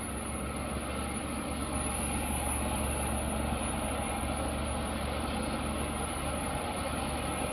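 Steady engine noise: a low idling hum with a thin high-pitched whine above it.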